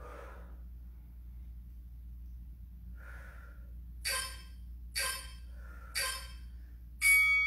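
A woman breathing hard during a set of dumbbell rear-delt flies: a couple of soft breaths, then three sharp exhales about a second apart. Near the end an interval timer gives a loud electronic beep, signalling the end of the set.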